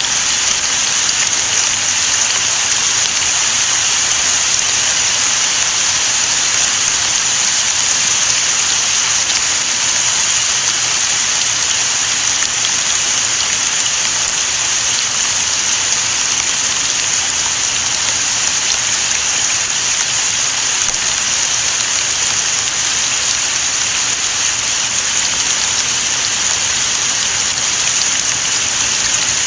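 Steady rain falling, an even, unbroken hiss of drops that does not change.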